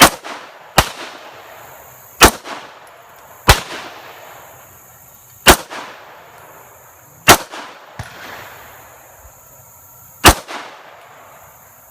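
Handgun fired seven times at an uneven pace, each sharp shot followed by a short echo.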